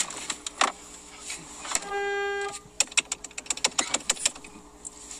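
A hatchback's passenger door is slammed shut at the start, with a second knock just after. About two seconds in comes a short, steady horn-like beep lasting about half a second, followed by a run of light clicks and taps.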